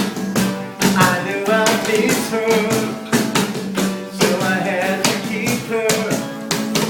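Rock music with a singing voice over drums and a steady bass line.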